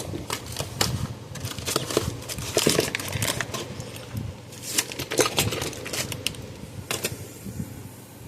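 Irregular small clicks, taps and rattles of hard parts being handled on a workbench.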